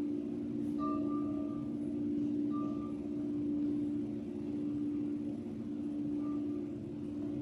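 Chimes ringing: a long, steady low tone holds throughout, and a few higher strikes ring out and fade quickly, about a second in, at two and a half seconds and near six seconds.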